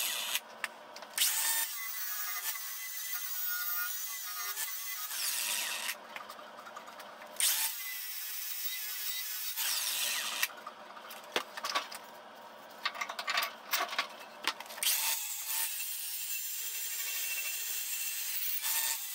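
Cordless angle grinder with a flap disc grinding the cutting edge of a steel mower blade, sharpening it. It runs in several bursts with quieter gaps between them, the last and longest near the end.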